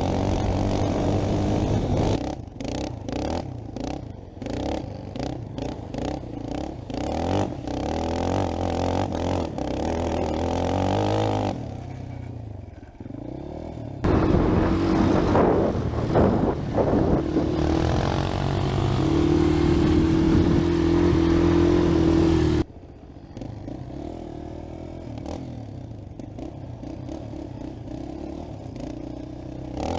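Four-wheeler (ATV) engines revving and running under load as the quads are ridden, the sound changing abruptly several times. The loudest part, from about 14 to 23 seconds in, is an engine held at high, steady revs.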